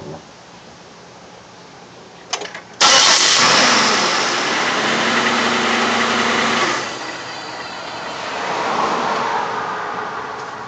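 2004 Pontiac Grand Prix 3.8-litre V6 starting: a few clicks, then the engine catches about three seconds in and runs loud at a fast idle. About seven seconds in it drops to a quieter, steady idle.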